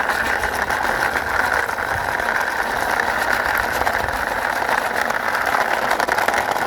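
Plastic toy car pushed by hand, its wheels rolling and rattling across a hard surface in a steady run.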